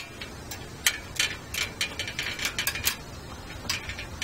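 Irregular metallic clicks and rattles of a bicycle chain being worked off the rear sprocket by hand.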